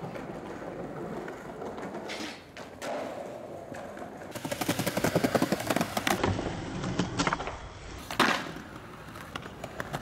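Skateboard wheels rolling over stone paving, with a fast rattling clatter from about four to six seconds in. A single sharp clack of the board striking the ground comes just after eight seconds, the loudest sound.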